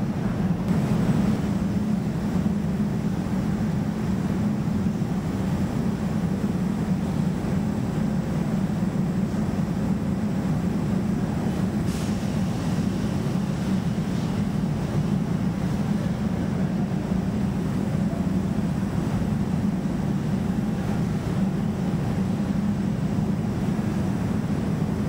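EDRO DynaWash three-pocket end-loader washer-extractor running, a steady low mechanical hum and rumble that holds even throughout.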